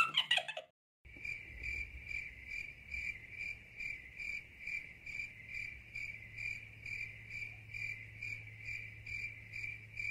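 Steady high-pitched chirping, evenly pulsed about two and a half times a second, over a low hum.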